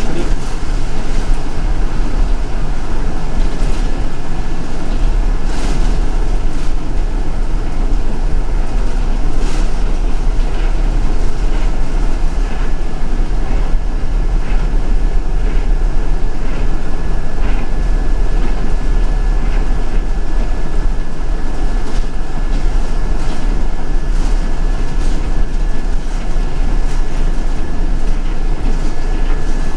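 Interior of a moving city bus: a steady, loud engine and road rumble with scattered rattles and clicks and a thin, steady high whine.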